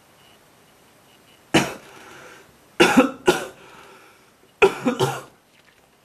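A person coughing: a single cough about a second and a half in, two together near the middle, and another pair near the end, each sharp at the start and briefly trailing off.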